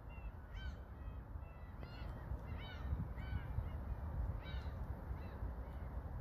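Birds calling over the mudflat: a string of short, arched calls, about a dozen in six seconds, over a steady low rumble.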